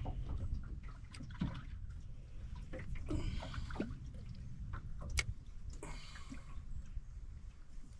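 Water lapping and dripping, with scattered small clicks and knocks over a steady low rumble.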